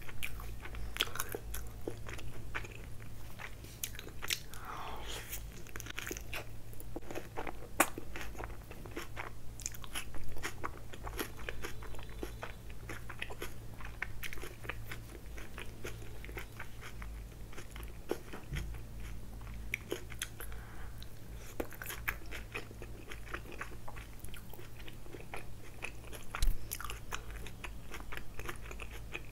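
Close-miked chewing and biting of a chicken tikka wrap: soft wrap and chicken chewed with many small wet mouth clicks and smacks, and a few louder bites.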